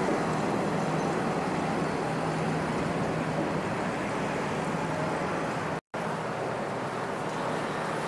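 Steady running noise of a JNR 781 series electric train with a faint low hum, broken by a brief total dropout just before six seconds in.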